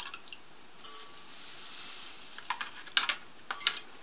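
A soft rustling hiss about a second in as dessert powder goes into a glass bowl of milk, then a metal wire whisk clinking and scraping against the glass in quick taps near the end.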